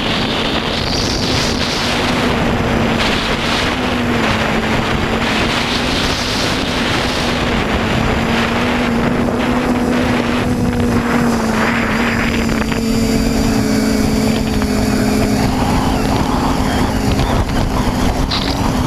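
TBS Discovery Pro quadcopter's electric motors and propellers humming steadily, heard from the camera on board, with a pitch that drifts slightly up and down with the throttle. Wind rushes over the microphone as the craft flies fast and low.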